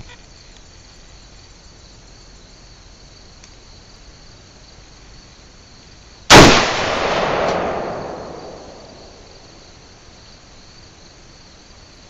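A single rifle shot about six seconds in, its report rolling away over about two seconds. Steady insect chirring runs underneath.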